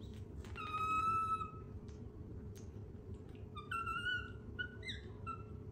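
Baby macaque giving high tonal coo calls: one long call about a second in, then a run of shorter calls in the second half, over a low steady hum.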